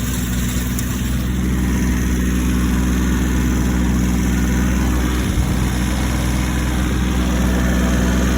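Tractor engine running steadily with its rotary tiller turning, filmed for an abnormal noise from the tiller's chain case.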